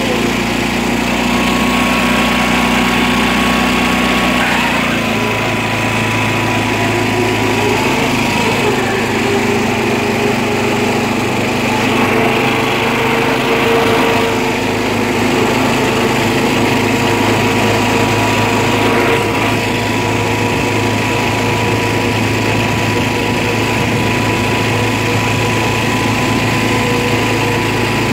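Engine of an old John Deere riding lawn tractor running steadily as the tractor is driven, its note shifting a little about five seconds in and rising slightly a few seconds later.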